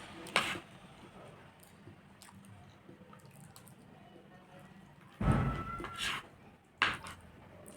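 Close-up eating sounds: a few short wet mouth clicks, one near the start and one near the end, with a louder, longer bump about five seconds in.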